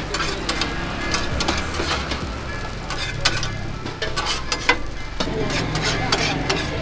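Metal spatula scraping and clicking against a flat metal griddle as roti jala is scraped up and lifted off, with batter frying on the hot plate.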